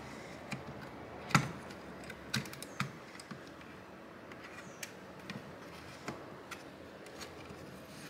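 Irregular light clicks and taps as an Asus PN61 mini PC's motherboard is wiggled by hand against its case while being worked free, the loudest click about a second and a half in.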